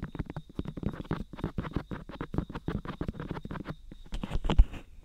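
Fingers rubbing and touching the ears of a dummy-head binaural microphone: a close, dense crackle of scratches and rubs, with a louder thump about four and a half seconds in.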